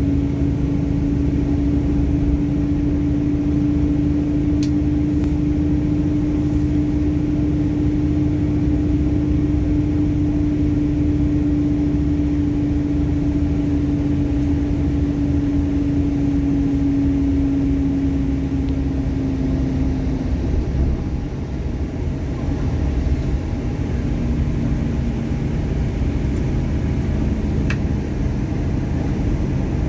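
Heavy machinery running: a steady low rumble with a held humming tone that fades out about two-thirds of the way through, and a slightly lower hum that comes in near the end.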